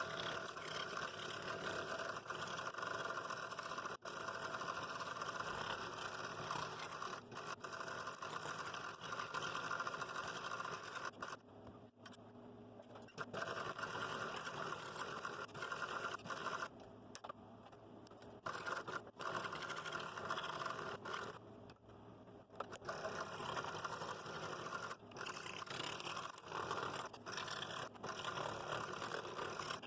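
Scroll saw running and cutting through 3/8-inch walnut: a steady reciprocating buzz with the blade rasping through the wood. It drops off briefly three times along the way.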